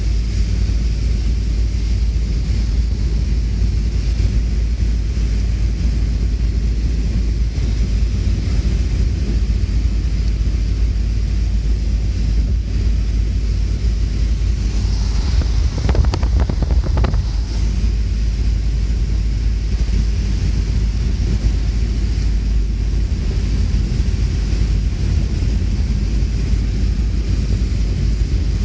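Strong wind buffeting the microphone, a heavy low rumble with a steady hiss over it. About halfway through there is a short cluster of knocks or crackles.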